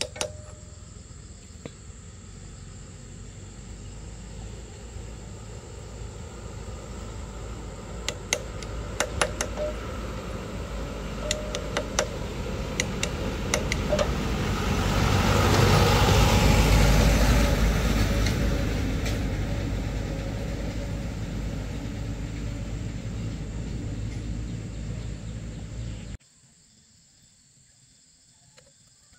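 A motor vehicle passes by, its noise swelling to a peak about halfway through and then fading. Sharp metal clicks of a wrench working on bolts come as the noise builds. The sound cuts off abruptly near the end.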